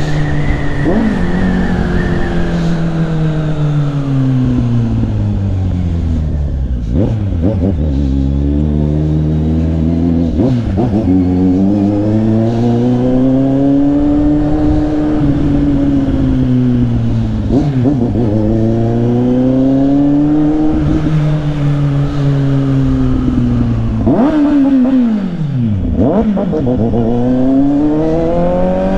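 Motorcycle engine under way, its pitch falling and rising several times as the bike slows and speeds up, with quick dips in pitch at gear changes.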